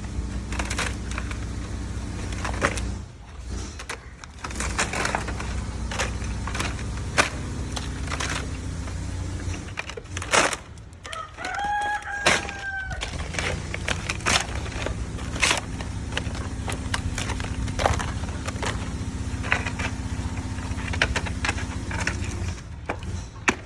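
Repeated sharp knocks of a hammer and puller working the plywood off an old wooden chair, over a steady low hum. About halfway through, a rooster crows once.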